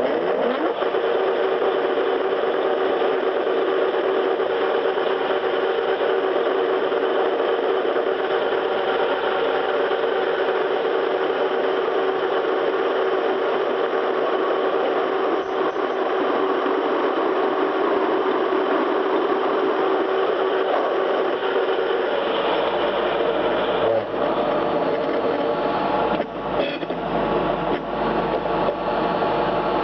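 A metalworking machine's electric motor running steadily with a constant hum; the sound changes about 22 seconds in.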